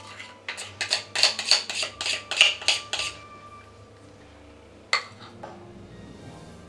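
A metal spoon clinking and scraping against a glass mixing bowl and metal baking tins while batter is spooned out: a quick run of about a dozen clinks, then a single knock about five seconds in.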